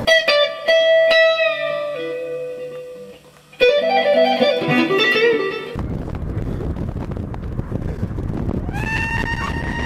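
Electric guitar music played with a tapping technique: ringing notes that step downward, a brief dip, then a second run that cuts off suddenly about six seconds in. After that, a steady rushing noise with one long, held high tone near the end.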